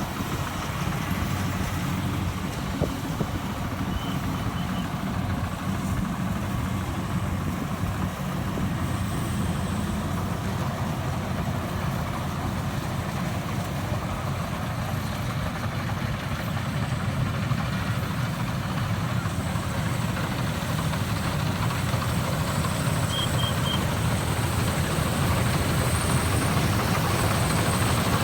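A combine harvester's diesel engine running steadily while harvesting rice, with a low, even drone that grows a little louder over the last several seconds.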